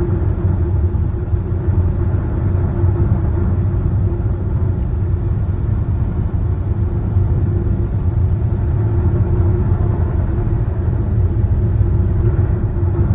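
Car driving at highway speed, heard from inside the cabin: a steady low road-and-engine rumble with a faint steady hum above it.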